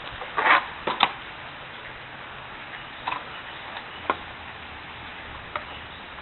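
A few short, sharp scrapes and clicks over a steady hiss: two close together about a second in, then single ones spread out.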